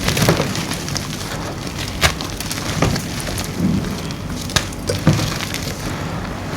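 Gym chalk being crushed and crumbled: a steady dry crunching and crackling, with several sharper snaps of pieces breaking.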